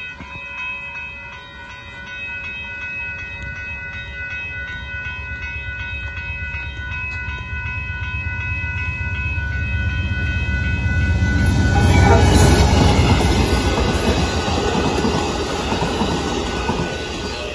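Grade-crossing bell ringing steadily while an Amtrak passenger train approaches. The train's low rumble builds, loudest about twelve seconds in as it reaches the crossing, drowning out the bell. The bilevel Superliner cars then keep rumbling and clattering over the rails.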